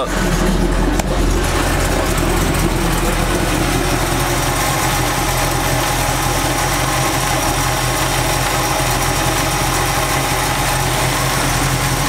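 1984 Chevy C10's carbureted V8 idling steadily as it warms up. Its exhaust runs through mufflers that the owner calls trash.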